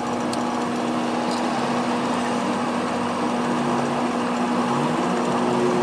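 Steady hum of a running motor, holding one constant low pitch.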